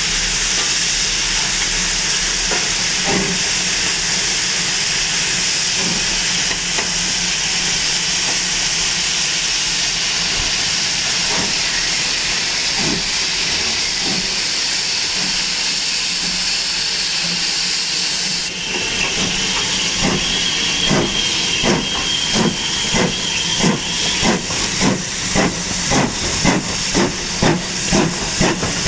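Ivatt Class 2 2-6-0 steam locomotive hissing loudly and steadily with escaping steam. Partway through this gives way to its exhaust chuffing as it pulls away, the beats quickening from about one to two a second, with a faint high squeal for a few seconds.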